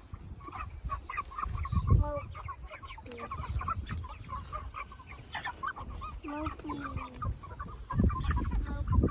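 A flock of six-week-old meat chickens clucking and peeping at the feed, in many short overlapping calls. A few low thumps come about two seconds in and again near the end.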